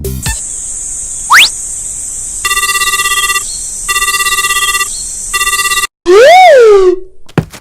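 Cartoon sound effects: a quick rising swoop, then a telephone ringing in three short bursts, then a loud boing that rises and falls in pitch.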